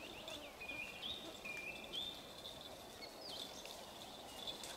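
Small songbirds singing in woodland: a quick run of falling chirps at the start, then high thin whistled notes held at a few steady pitches, over a faint background of forest air.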